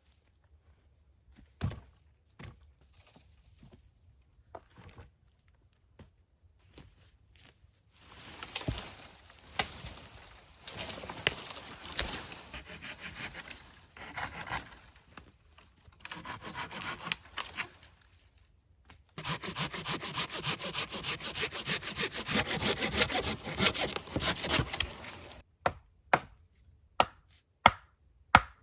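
Hand saw cutting through wood in two long stretches of sawing, after a few scattered knocks of wood being handled. Near the end the sawing stops and sharp wooden knocks follow, about two a second.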